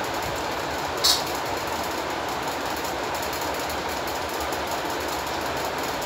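One short, sharp, high-pitched chirp from a rose-ringed parakeet about a second in, over a steady loud rumbling noise.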